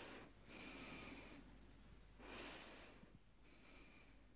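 Faint, slow breathing through an oxygen mask, heard as soft hissing breaths in and out with a thin whistle in each. Four breaths, repeating about every two and a half seconds.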